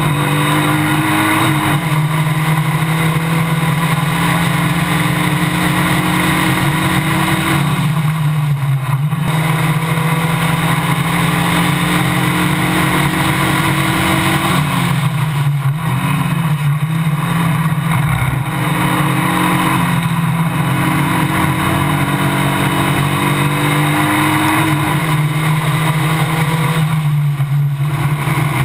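Formula Basic single-seater race car engine running hard at racing speed, heard onboard. Its pitch holds or slowly climbs, with several brief drops and recoveries along the way.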